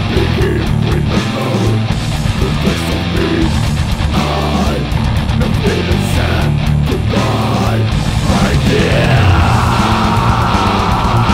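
Progressive death metal band playing an instrumental passage: distorted electric guitars over bass guitar and drums.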